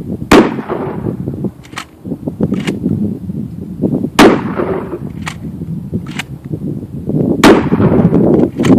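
Shotgun fired three times, roughly three to four seconds apart, each report followed by a rolling rumble. Fainter sharp clicks fall between the shots.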